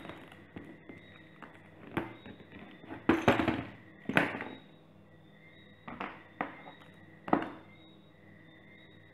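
Light clicks, taps and clatters of a precision screwdriver and a hard tool case being handled on a table during phone repair. A few sharper knocks come around the middle.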